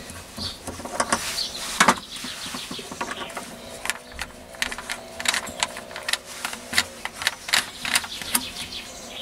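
Metal clicks and clinks of a drill bit being fitted and tightened by hand in a keyless drill chuck, with a string of sharp clicks several a second in the second half.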